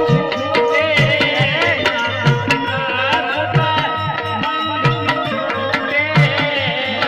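Indian devotional folk music through a PA sound system: a hand drum keeps a steady beat under a held drone and a wavering melodic line.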